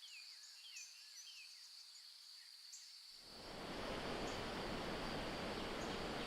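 Outdoor nature ambience: insects trilling steadily, with a few short bird chirps in the first second. About three seconds in, a broad rushing noise swells up and holds, covering the insects.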